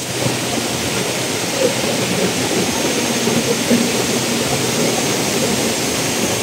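Rocky forest stream running over stones: a steady, even rush of water.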